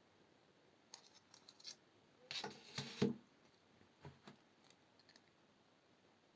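Small hand tools working 21-gauge brass wire: a few light clicks, then a short scraping rub about two seconds in that ends in a sharp click, followed by two more light clicks.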